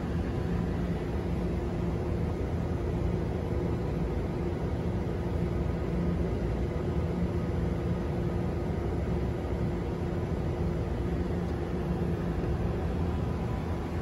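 Steady mechanical hum with a low rumble and a few held tones, unchanging throughout.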